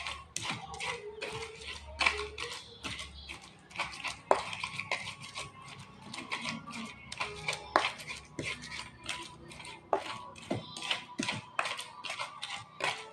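Pestle pounding and grinding a coarse spice paste in a cobek mortar: irregular knocks and scrapes, about three or four a second.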